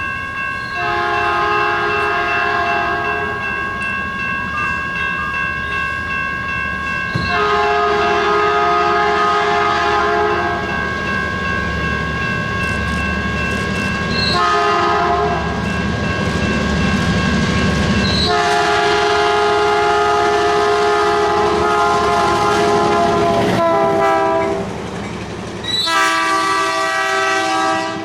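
Horn of an EMD MP15DC switcher locomotive sounding a series of long and short blasts, several notes at once, over the rumble of the passing train and its wheels. A steady high tone runs under the first half.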